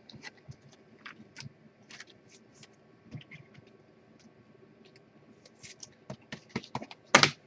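Trading cards being handled: scattered small clicks, taps and scrapes of card stock sliding and being set down, with one louder brief rustle near the end.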